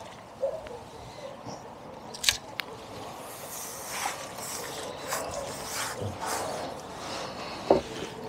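Fishing tackle being handled as a fish is played on a pole and netted: scattered clicks and knocks of the pole and landing net. The sharpest click comes a little over two seconds in, and another near the end.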